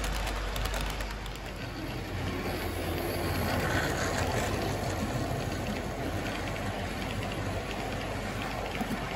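Model freight train running along its track: wheels rattling over the rails, with a low steady hum from the locomotive's motor.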